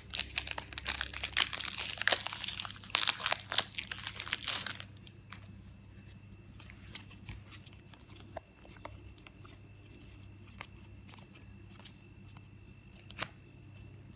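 A Magic: The Gathering booster pack's wrapper being torn open and crinkled for about the first five seconds. After that it goes quiet, with faint clicks of the playing cards being handled and sorted.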